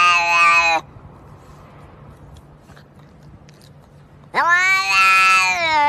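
Domestic cat giving a long, drawn-out meow held at a steady pitch that stops under a second in. After a pause of about three and a half seconds, a second long meow starts near the end.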